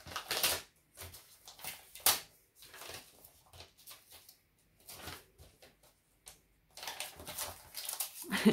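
Paper envelope being torn open and rustled as a greeting card is pulled out, in short scattered bursts with quiet gaps, busiest in the last second and a half. A short louder sound comes at the very end.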